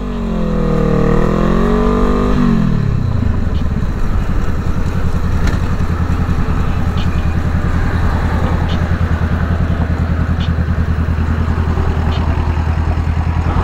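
Motorcycle engine, its revs wavering up and down for the first couple of seconds and then dropping as the throttle is rolled off. It then runs steadily at low revs with an even pulsing.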